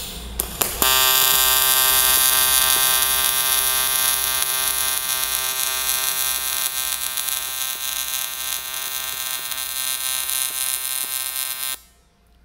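AC TIG welding arc on aluminium, buzzing steadily at a fixed 125 amps from a trigger switch. A few clicks come just before it strikes about a second in, and it cuts off suddenly near the end when the trigger is released.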